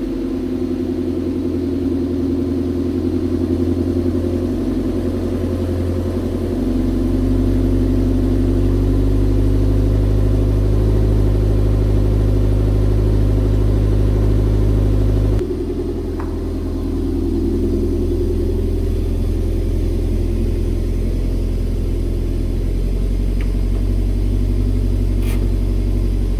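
Toyota MR2 Spyder's 1.8-litre four-cylinder engine running steadily after its first start in over a week. It gets louder about a quarter of the way in, drops abruptly a little past halfway, then builds again.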